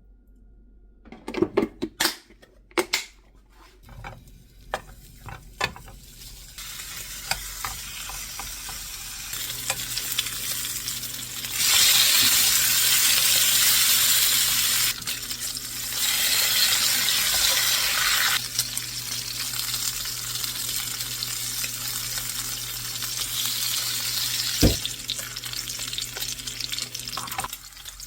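A few clicks and knocks of cookware, then food frying and sizzling in a pan. The sizzle turns loud and harsh in two stretches around the middle, over a steady low hum, with one sharp click near the end.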